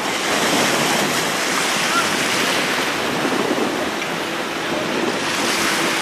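Small sea waves washing in over the shallows at the shoreline, with wind buffeting the microphone. A faint steady hum joins near the end.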